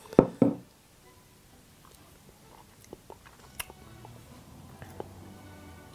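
Two sharp clicks near the start, then a quiet stretch of faint mouth smacks and small clicks as Caesar salad dressing is tasted off a finger.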